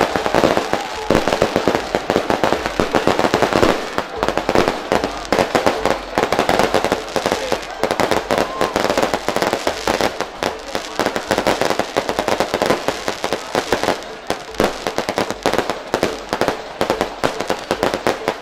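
Fireworks crackling and popping in a dense, rapid stream of sharp cracks, many a second, that keeps on without a break.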